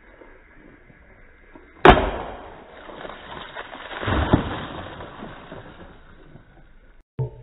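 A sword slicing through liquid-filled plastic jugs: a sharp smack about two seconds in, then splashing and spattering liquid, with a second smack and splash about two seconds later.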